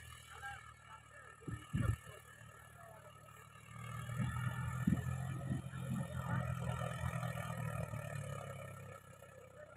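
John Deere 5050D tractor's three-cylinder diesel engine running steadily under load while pulling a rotary tiller, heard from across the field. It grows louder from about four seconds in and drops back near the end. A couple of brief low thumps come just under two seconds in.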